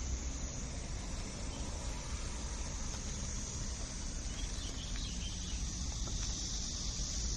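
Outdoor ambience: a steady low rumble with insects droning in a high, even band that grows a little stronger about halfway through.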